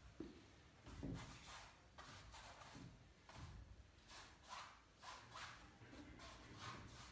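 Faint paintbrush strokes on the painting surface: soft, quick swishes, about two or three a second, with a couple of low bumps near the start.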